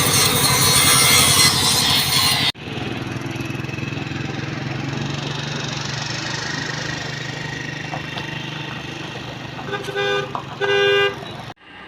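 A harsh scraping noise for the first couple of seconds, then a vehicle engine running steadily, with its horn honking twice near the end.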